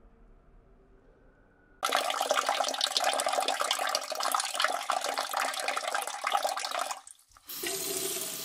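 A stream of urine splashing into the water of a toilet bowl, starting suddenly about two seconds in and running for about five seconds. Near the end, after a brief break, a shorter and quieter rushing, water-like hiss.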